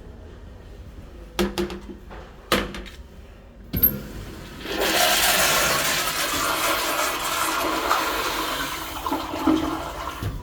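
Kyerim Yoeop C-557F ceramic toilet being flushed: a few clicks, then a sharp click about four seconds in, then loud, steady rushing water from about five seconds in.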